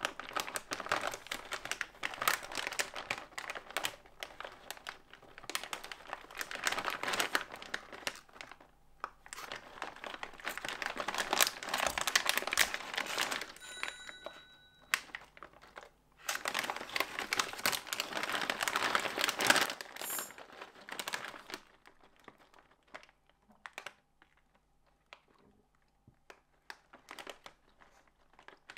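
Plastic snack bag crinkling as it is handled, in three long bursts of crackling, then only a few light crackles and clicks for the last several seconds.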